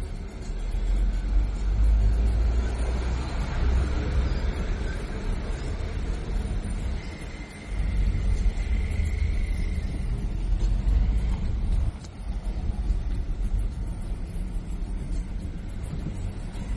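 Low, uneven rumble of a road vehicle in motion, dipping briefly twice, with a faint thin high tone in the middle.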